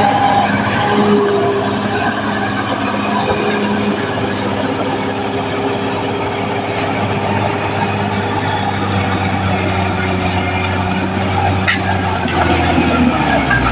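Caterpillar D6R XL bulldozer's diesel engine running steadily under work, with steady engine tones over a rough mechanical noise, growing louder near the end.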